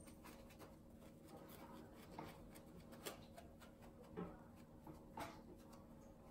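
Near silence with faint, scattered light taps and rubbing: a small sponge being dabbed along a painted wooden chair rail.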